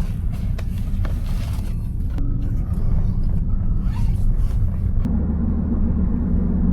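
Car in motion heard from inside the cabin: a steady low road-and-engine rumble. About five seconds in, it settles into a steadier, deeper hum.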